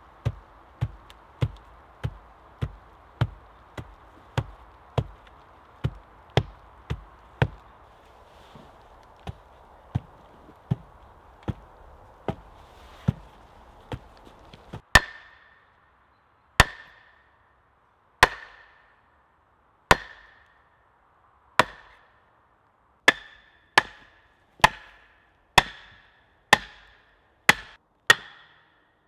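Hand tools striking wood in a steady series of blows: first dull knocks about one and a half a second, then, about halfway, sharper blows with a short ring, spaced about a second and a half apart and quickening near the end.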